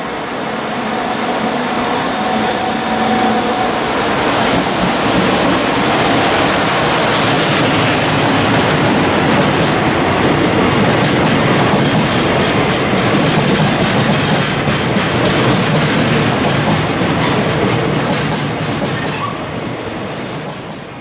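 JR Freight EF210 electric locomotive running through at speed with a steady traction-motor tone in the first few seconds. A long freight train of container wagons follows, rolling past with a loud, even rumble and rapid clatter of wheels over the rail joints.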